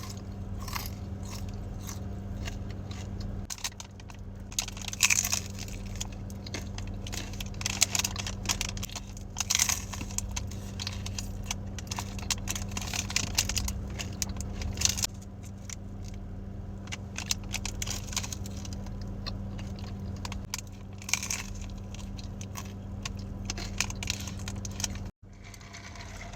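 Close-miked chewing and crunching of Jack in the Box fast food, in repeated bites, over a steady low hum. The sound drops out for an instant near the end.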